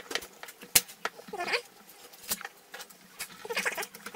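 Clicks and knocks of an electric drill's metal gearbox housing and plastic body being handled and pressed together, with one sharp click just under a second in and a short wavering squeak about a second and a half in.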